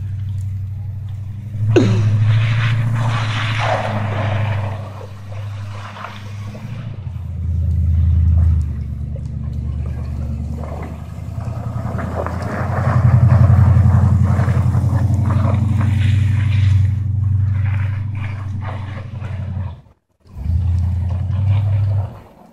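1983 Dodge D150 pickup's swapped-in 360 V8, running through open headers with no exhaust, revving up and down as the truck slides around in snow. The engine sound cuts out for a moment near the end, then comes back briefly.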